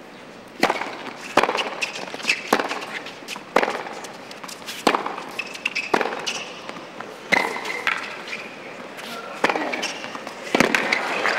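Tennis rally on a hard court: the sharp pop of racquets striking the ball, starting with a serve, and ball bounces, about one shot a second. Crowd noise swells near the end as the point finishes.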